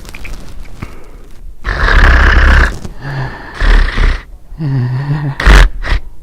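A man's loud, exaggerated fake snoring: a long snore starting about a second and a half in, then several shorter ones, some with a low groaning buzz.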